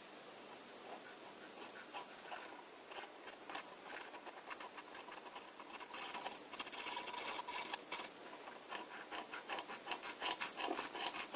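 Pocket-knife blade hand-scraping the bore of a tapered bronze lathe spindle bearing in short strokes, taking down a high spot shown by the marking paint. The strokes come quicker and more regularly in the second half.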